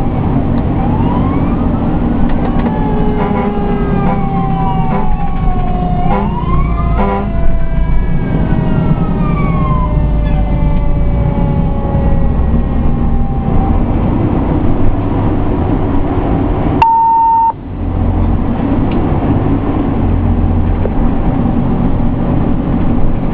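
Fire engine sirens wailing, several overlapping tones rising and falling, over the steady rumble of a Pierce Enforcer fire engine running down the road, heard from inside the cab. The sirens stop a little past halfway, leaving the engine and road rumble, and a short steady beep sounds about two-thirds of the way through.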